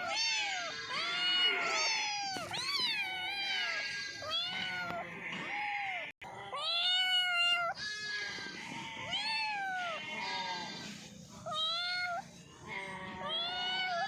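Cats meowing over and over, many high arching calls following close on one another and often overlapping, with a brief cut-out about six seconds in.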